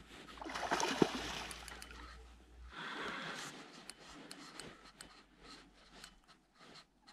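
A hooked pollock (saithe) splashing and thrashing at the water's surface on a tight line. The splashing comes in two bursts, the louder one from about half a second in and a shorter one around three seconds in, followed by scattered faint clicks.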